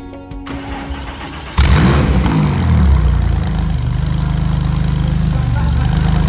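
Porsche 997 Turbo's 3.6-litre twin-turbo flat-six starting up through a newly fitted Capristo exhaust with catalysts in place: it catches suddenly and loudly about a second and a half in, the revs flare and fall, then it settles into a steady idle.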